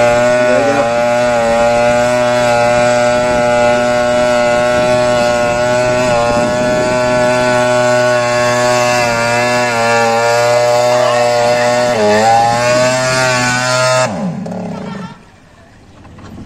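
Small pull-started petrol engine of a model fishing boat running steadily, with a few slight dips in pitch. It is shut off about fourteen seconds in, its pitch falling as it runs down.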